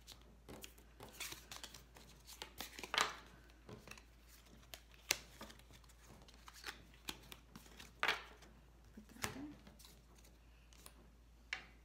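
Tarot and oracle cards being picked up off a wooden table and stacked by hand: scattered soft slides and flicks of card stock, with a handful of sharper taps and clicks.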